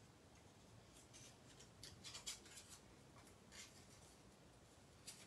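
Faint snipping of scissors cutting out a small paper leaf, with a cluster of short snips about two seconds in and a few more later.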